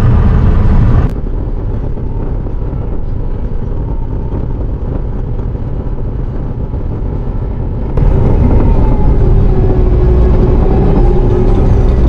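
Diesel engine of a Bobcat T650 compact track loader running steadily, heard from inside the cab as it drives. The sound drops abruptly about a second in and comes back louder about eight seconds in, with a wavering whine over it near the end.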